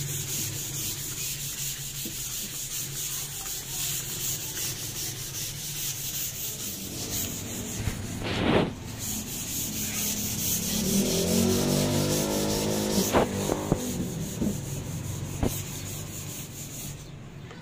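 Sandpaper rubbed back and forth by hand over a stained wooden table top: a light sanding of the dried stain before the clear coat goes on. A sharp knock about halfway through.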